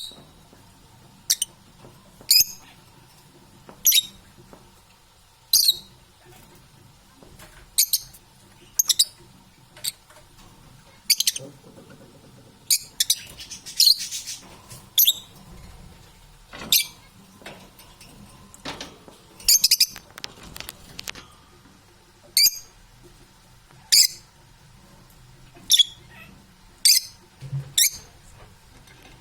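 Parrot giving short, sharp, high-pitched calls over and over, roughly one a second, some in quick pairs.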